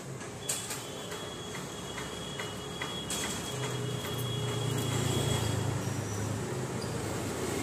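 Dog eating from a steel bowl on a concrete floor, with soft regular clicks of its mouth and the food against the bowl, about two or three a second. A low hum swells in the middle and fades.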